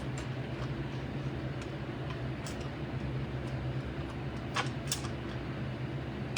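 A few scattered light clicks of a utensil against a mixing bowl while mayonnaise-and-Parmesan mixture is scraped off it, over a steady low hum.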